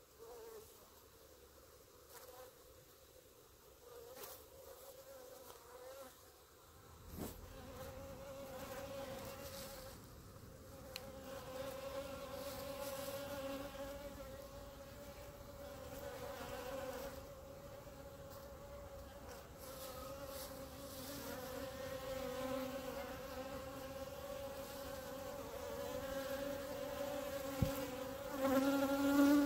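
Honeybees buzzing around a clump of workers balling a queen in the grass. The steady buzz is faint at first and grows louder about a quarter of the way in.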